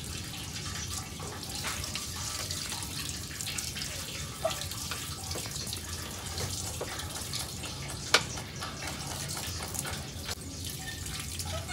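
Water running from a garden hose and splashing onto a motorcycle's wheel and the wet paving below, a steady hiss and patter. A single sharp click about eight seconds in.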